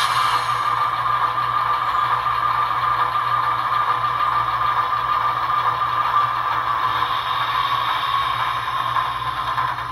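Atlas Silver ALCO RS-1 model locomotive's SoundTraxx Tsunami 2 sound decoder playing a steady diesel engine sound through the model's small speaker, with a sharp click right at the start.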